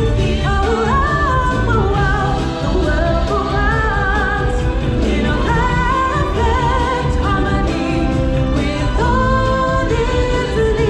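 Background music with singing from a live stage show: sung voices with wavering pitch over a continuous bass.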